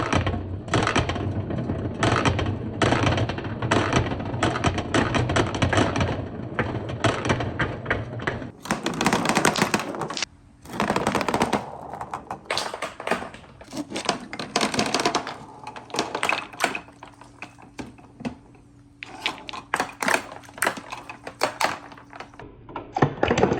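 Many marbles and wooden balls rolling and clattering together down wooden marble-run ramps: a dense rattle of small clicks, which breaks off briefly about ten seconds in and thins out for a few seconds later on.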